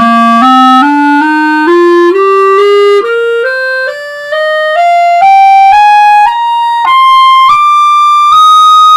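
Serio Oscuro clarinet, fitted with brown, red and orange tone rings, played as a rising scale, one note after another climbing from its low register up to a long held high note near the end.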